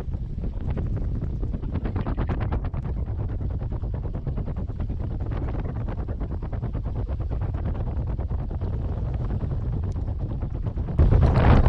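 Wind buffeting the camera microphone: a steady low rumble that gets louder near the end.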